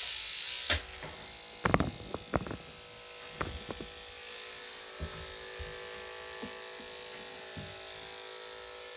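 Electric dog clippers with a number 5 blade running with a steady hum, and scattered short knocks from handling. A loud hiss in the first moment stops sharply under a second in.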